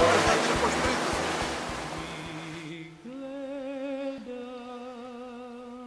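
Rushing of sea waves with a fast low throbbing beneath, fading out over the first three seconds. Then music takes over: a slow melody of long held notes with a wavering vibrato.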